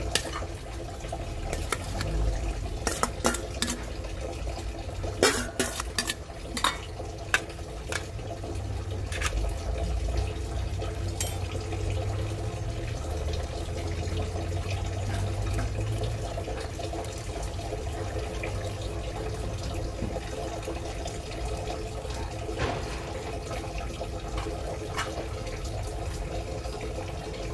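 A metal utensil clinking and scraping against a stainless steel bowl and tray as wet pickled cucumber pieces are pushed out. Most of the sharp clinks fall in the first ten seconds, with a few more later over a steady low hum.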